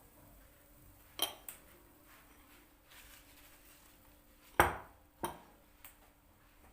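Kitchenware being handled: about five sharp clinks and knocks of dishes and utensils, the loudest about four and a half seconds in, over a faint steady hum.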